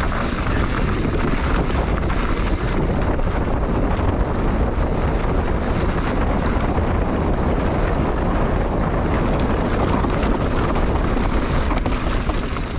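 Wind rushing over the microphone and tyres rumbling on a dirt trail as a mountain bike descends at speed: a loud, steady rushing noise.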